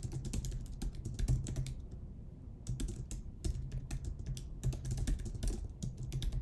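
Typing on a computer keyboard: quick runs of key clicks, with a short pause about two seconds in.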